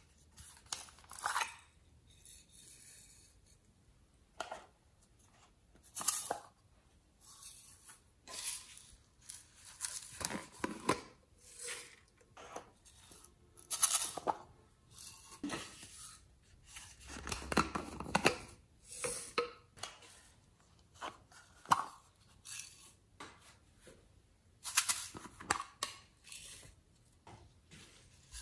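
Small plastic toy containers being handled, opened and tipped out, with sequins and glitter spilling into a glass dish: a run of short, irregular rustles, clicks and clatters.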